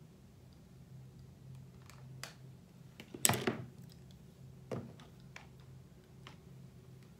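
Scattered light clicks and knocks of objects being handled, with a louder thunk a little over three seconds in and another just before five seconds, over a faint steady low hum.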